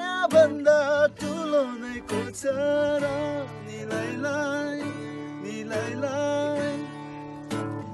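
A man singing while strumming an acoustic guitar, holding long notes.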